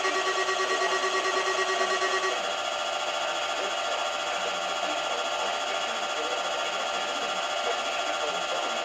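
Weather radio alarm tone, pulsing rapidly, that cuts off about two seconds in, leaving steady radio hiss.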